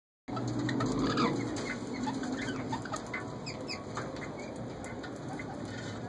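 Caged birds chirping and calling: many short, quick chirps, several sliding in pitch, over a steady low hum. The calls are loudest about a second in.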